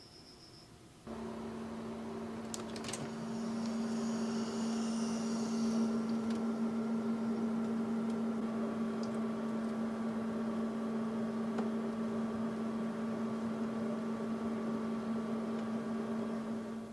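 Oven running while steam-baking custard puddings: a steady hum that starts abruptly about a second in, with a few sharp clicks around three seconds in.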